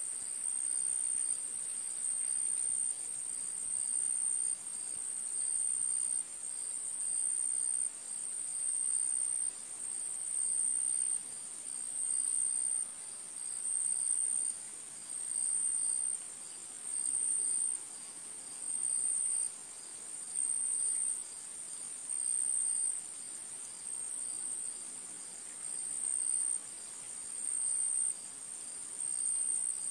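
Insect trilling, cricket-like: a steady high-pitched whir that swells and fades in regular pulses, a little less than one a second.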